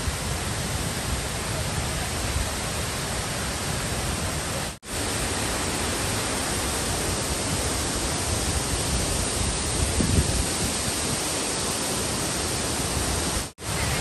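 A large waterfall in strong flow: a steady, dense rush of falling water and spray, cut short twice, briefly, about five seconds in and near the end.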